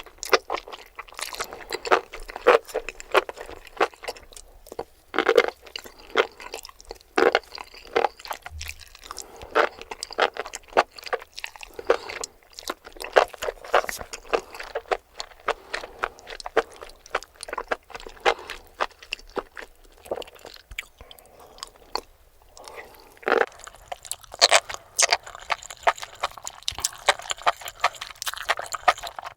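Close-miked crunchy chewing and biting: mushrooms crackling between the teeth in rapid, irregular crunches.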